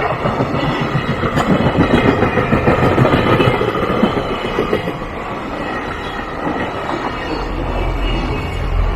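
Freight train wagons rolling past, their wheels clacking over the rail joints in a rapid rhythm with a rumble beneath. Loudest two to three seconds in, then easing a little.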